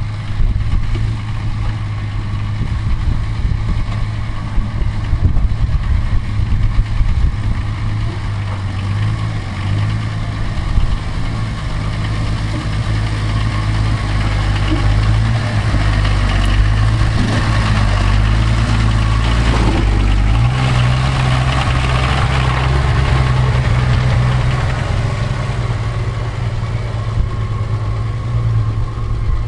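A 4x4 truck's engine running at low revs as it crawls over rocks and mud, with the pitch stepping up about twenty seconds in as the revs rise. The engine has been blowing blue and white smoke and burning fuel fast, which the owners hope is only down to the high altitude.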